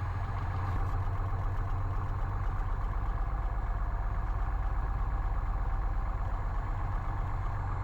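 Six-cylinder Continental O-300 engine of a 1967 Cessna 172H running steadily at about 1,000 RPM just after the run-up, with an even, rapid low pulsing.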